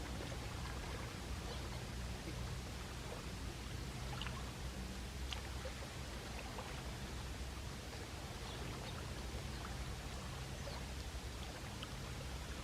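Small sea waves washing on the shore, a steady wash with a few faint ticks and splashes.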